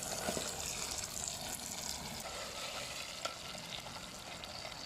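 Tofu frying in oil in a pan: a steady sizzle with scattered small crackles, easing slightly toward the end.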